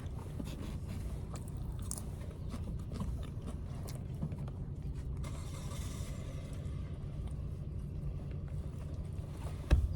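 Eating sounds: chewing and small clicks of food and utensils over a steady low rumble, with one louder knock near the end.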